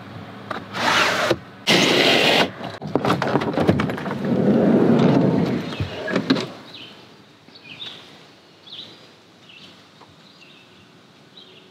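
Camper van door handling: two short rushing noises, a run of latch clicks, then a longer low rumble that ends in a thunk about six seconds in. After that, faint bird chirps come about once a second.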